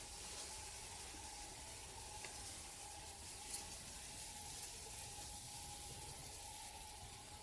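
Faint steady hiss of quiet riverside ambience, with a faint steady high tone throughout and a single small click about three and a half seconds in.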